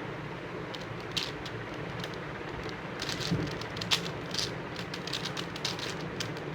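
Plastic 5x5 Rubik's cube layers being turned by hand, giving irregular quick clicks and clacks in bursts, over a steady background hum.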